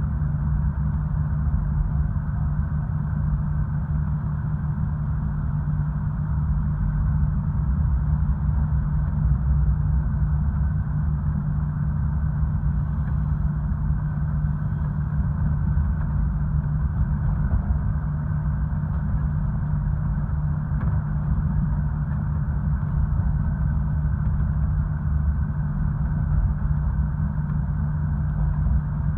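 Diesel engine of a KiHa 66 railcar running with a steady low hum and rumble, heard from inside the passenger cabin.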